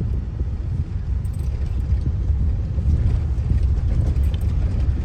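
Steady low rumble of a moving car heard from inside the cabin: tyre and road noise with the engine underneath.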